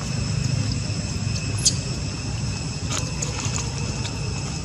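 Outdoor ambience: a steady low rumble under a steady high-pitched drone, with a few faint short chirps and clicks, one chirp about one and a half seconds in.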